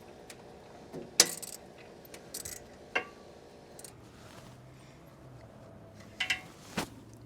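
Scattered metal clinks and knocks of hand tools working a spark plug out of a lawnmower engine, the loudest clank about a second in.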